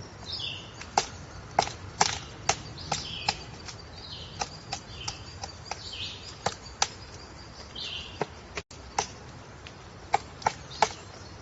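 Woodpecker pecking at wood: single sharp taps at an irregular pace, about one or two a second, each with a short ring. Short bird calls break in between the taps.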